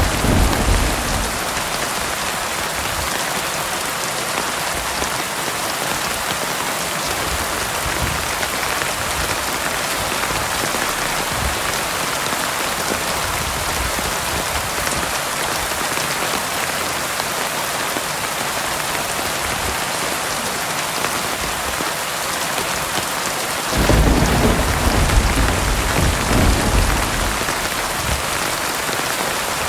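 Heavy rain falling steadily in a thunderstorm, with a low rumble of thunder at the start and another rolling in about two-thirds of the way through for a few seconds.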